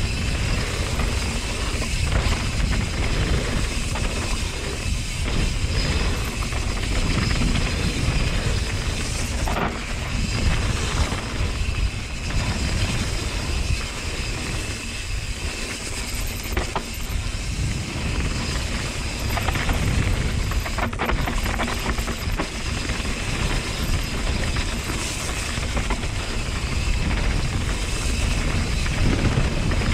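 Mountain bike riding down a rocky dirt trail: steady wind buffeting on the action camera's microphone over tyre noise on dirt and gravel, with occasional knocks and rattles from the bike over rough ground.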